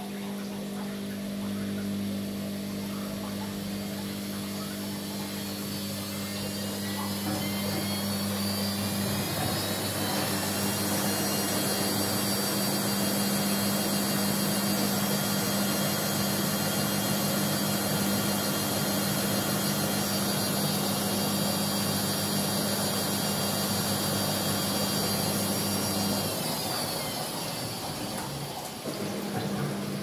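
Amica WA 14680 W front-loading washing machine spinning its drum. The motor whine rises as the drum speeds up over the first ten seconds, holds steady, then falls away as the drum slows down about 26 seconds in. A drain pump hums steadily underneath, stopping briefly near the end.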